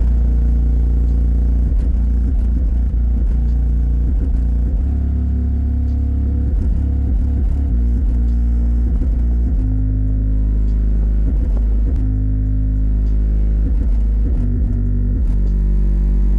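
Loud bass-heavy music played through two Sundown Audio E8 8-inch subwoofers on a Hifonics 3200-watt amplifier, in a box tuned to 33 Hz. Deep, sustained bass notes shift in pitch and fill the sound, with only faint higher parts of the music above them.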